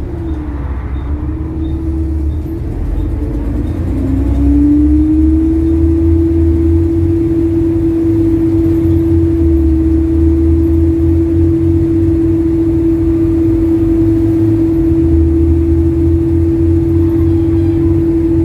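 Bus engine running under way, with a deep rumble and a steady hum that rises in pitch about four seconds in, as the bus speeds up, and then holds level. The engine carries a ticking that points to a blown exhaust manifold.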